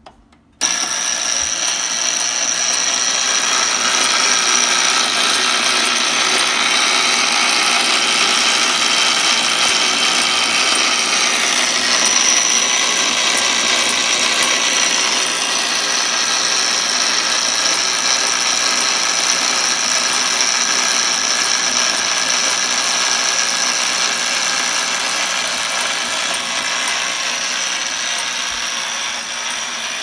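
Gamewell fire alarm box's spring-driven clockwork set running by hand: a loud, steady mechanical whirring that starts abruptly about half a second in as the code wheel turns, easing off slightly near the end.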